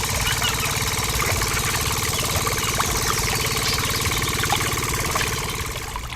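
An engine idling steadily with a knocking beat, fading away over the last second.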